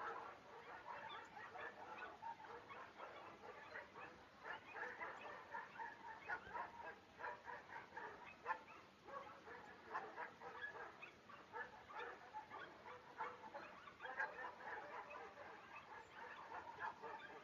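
Faint, continuous chatter of many short, overlapping animal calls.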